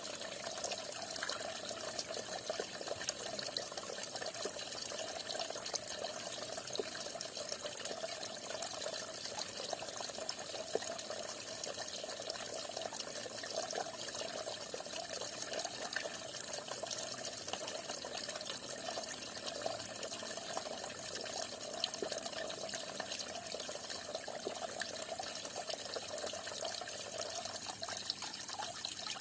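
Falling water splashing steadily, a small fall of water with a continuous patter of splashes.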